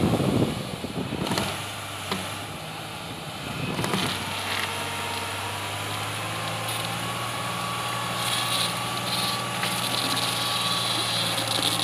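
Komatsu D70LE crawler bulldozer's diesel engine running steadily at low pitch while the machine works on the slope, with louder rough noises near the start and again about four seconds in.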